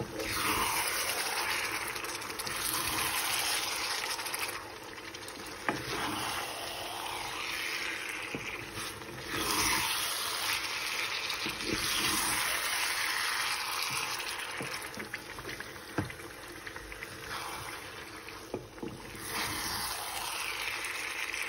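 Raw chicken pieces being stirred into a wet onion masala in a frying pan with a wooden spatula: a sloshing, sizzling hiss that swells and fades with each stroke every couple of seconds, with a few light knocks of the spatula against the pan.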